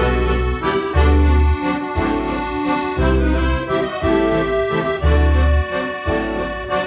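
Accordion music from the Turbosounds app: a melody over chords, with deep bass notes coming back about once a second.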